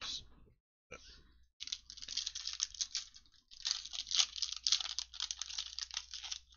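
A foil trading-card pack being torn open by hand, its wrapper crinkling and crackling in a dense run from about a second and a half in.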